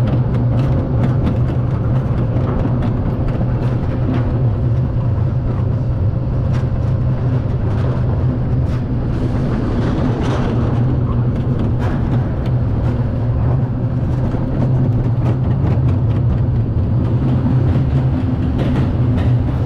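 Bobkart coaster car running along its track: a steady loud rumble with a low hum and scattered rattling clicks.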